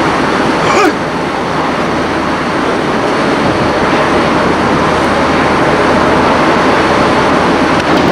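Steady, loud rushing noise on the deck of a ship under way, with a brief knock about a second in.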